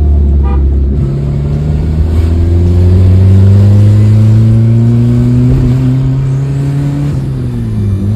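Maruti Esteem's engine under way, loud like a race car: its note steps up about a second in, climbs slowly for several seconds as it accelerates, drops near the end and begins to climb again.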